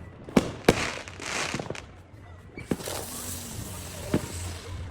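Fireworks going off: several sharp bangs with crackling about a second in, then a long high hiss with a few scattered pops.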